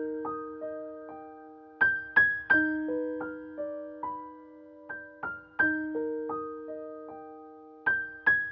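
Slow, soft keyboard music in a piano sound: single notes struck one after another, each left to ring and fade, over held lower notes.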